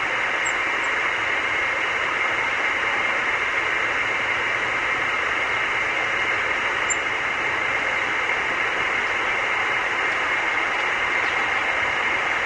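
Steady, unchanging hiss, with a couple of faint, very short high chirps about half a second in and again about seven seconds in.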